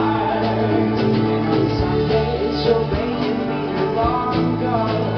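Live band playing a song: acoustic guitar and mandolin strummed over drums, with a man singing near the start and again about four seconds in.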